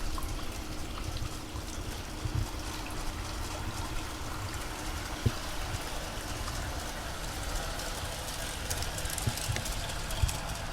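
Water trickling and pouring steadily through a garden pond's stream, with scattered low knocks underneath.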